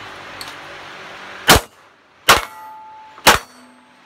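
Three 9mm shots from a Glock 17 pistol firing 115-grain Tula ammunition, about a second apart and starting about a second and a half in. A ringing clang follows the second and third shots, from hits on steel plate targets.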